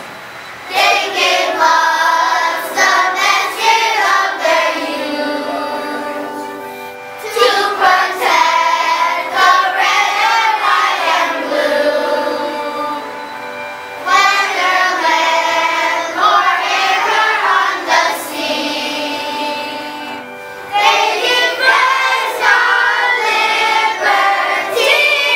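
A group of young schoolchildren singing together in sung phrases of several seconds, with short breaks for breath between them, starting about a second in.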